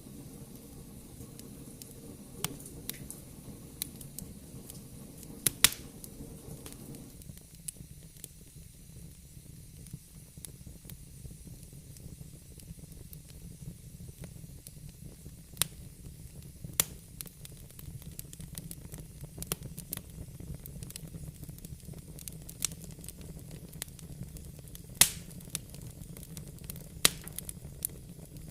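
Fire burning in a fireplace, crackling: a steady low rush of flame with sharp pops scattered irregularly, a few of them much louder than the rest.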